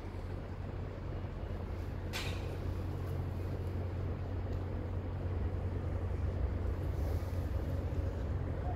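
Steady low rumble of outdoor background noise at a construction site, with one short, sharp hiss about two seconds in.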